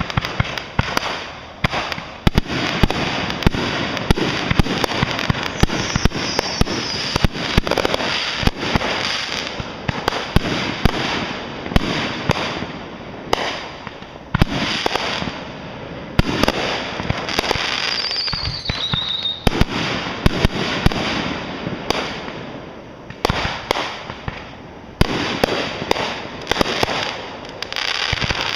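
Fireworks going off in quick succession: many sharp bangs over a steady crackling, with a falling whistle about six seconds in and another around eighteen seconds.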